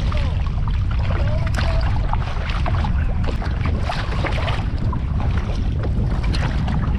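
Wind buffeting the microphone with a steady low rumble, over small, irregular water splashes and lapping around a kayak on open, choppy water.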